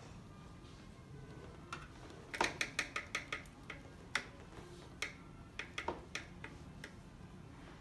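Small sharp clicks of a paintbrush tapping against the pans and tray of a watercolour paint palette while picking up and mixing paint: a quick run of about eight clicks a couple of seconds in, then scattered single taps.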